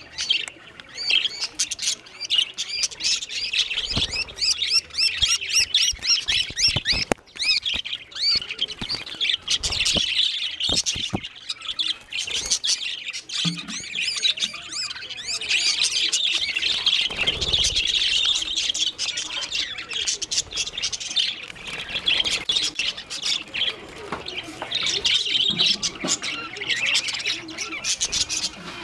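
Budgerigars chattering and squawking nonstop while two of them fight. A few short dull knocks come in, scattered through the first half.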